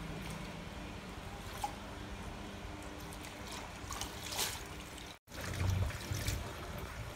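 Hands swishing amaranth greens in a steel basin of water, with splashing and trickling; sharper splashes come about four seconds in and again a little after six seconds.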